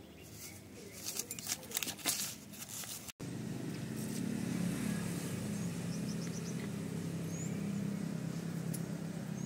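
Paper and plastic rustling and crinkling as a kitten rummages through a heap of waste newspaper. About three seconds in it cuts to a louder, steady low rumble with a few faint high chirps.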